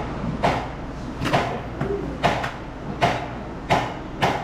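A series of sharp knocks or taps, roughly one every three-quarters of a second.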